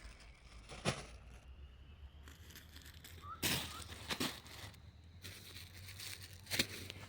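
A few short rustles and flaps, as of broiler chickens moving and flapping in the shed, over a low steady hum.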